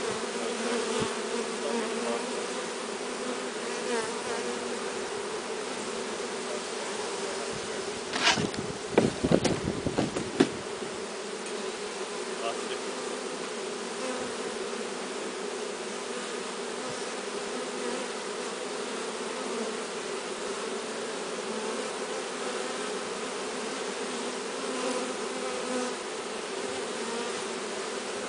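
Honeybee swarm buzzing as a steady, dense hum. About eight seconds in, a short cluster of loud knocks and clatter lasts roughly two seconds.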